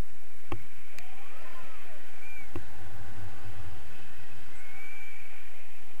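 Wind rushing over the microphone of a camera carried in tandem paraglider flight: a steady hiss with a low rumble, three sharp clicks in the first three seconds, and a few brief faint gliding tones.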